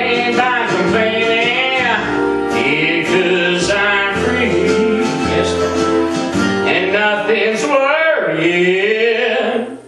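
A man singing with backing music led by plucked guitar; the music drops away briefly near the end.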